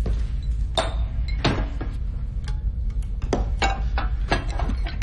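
Metal cups set down one after another on a hard bar counter, giving several sharp clinks over a steady low hum.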